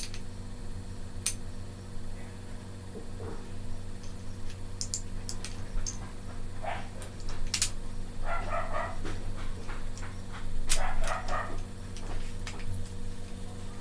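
Scattered light clicks and taps of small metal parts as an Armscor airgun's trigger housing is fitted together by hand and with a screwdriver. Two short animal calls sound in the background, about eight and eleven seconds in.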